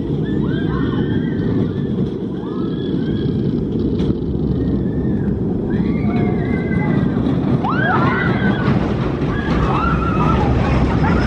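Pax steel family roller coaster train running along its track with a steady low rumble, while its riders scream and shout, more of them in the second half.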